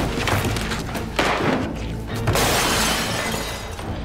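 Loud crashing and shattering, struck about three times roughly a second apart, over a steady dramatic music score.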